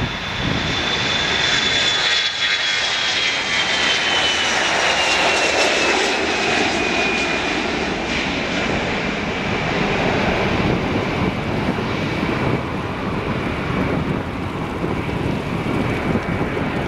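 Airbus A321-211's CFM56-5B turbofan engines at takeoff thrust as the airliner lifts off and climbs away. A loud, steady jet roar carries a high fan whine that falls in pitch over the first several seconds.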